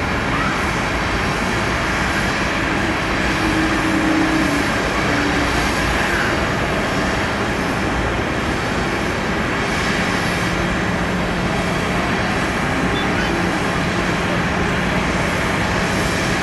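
Steady, distant roar of a Boeing 777-300ER's GE90 jet engines at takeoff power, heard across the airfield. A faint low hum joins about ten seconds in.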